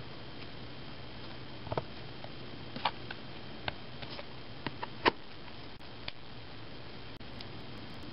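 Small metal parts and tweezers clicking and tapping against a wooden workbench as they are handled, a scattering of light clicks over a steady hiss.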